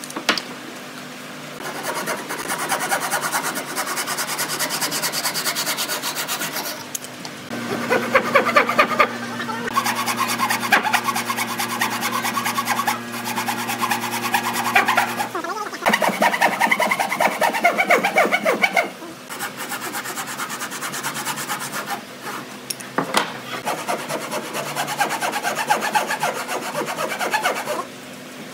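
Hand saw cutting through wood with rasping back-and-forth strokes, in several runs that stop and start abruptly.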